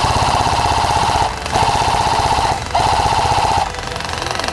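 Airsoft rifle firing on full auto in three bursts of about a second each, a rapid mechanical rattle with short pauses between; the firing is quieter near the end.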